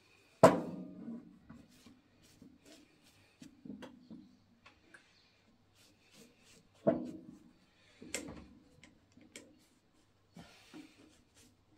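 An aluminium engine part being handled on a wooden block while it is wiped clean with a rag. The loudest sharp knock comes about half a second in, two more come about seven and eight seconds in, and quieter ticks and rubbing fall between.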